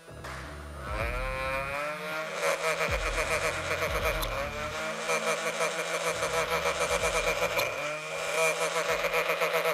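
Electric motors of a handheld twin-wheel ball launcher with 3D-printed wheels spinning up with a rising whine, then running at high speed with a fast flutter. Near the end the pitch dips briefly and climbs back. A ball is pushed between the spinning wheels, which slip on it rather than launching it.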